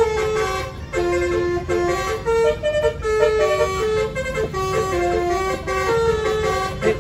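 Musical multi-tone bus air horn (basuri/telolet type) playing a melody of held notes that step up and down in pitch, over the low rumble of the bus.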